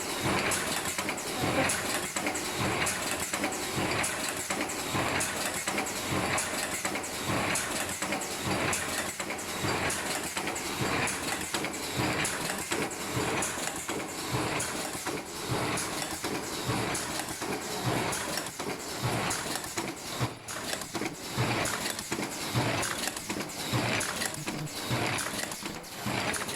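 Ultrasonic welding machine with its feeder running, a busy stream of short mechanical knocks and clatter over a steady noise.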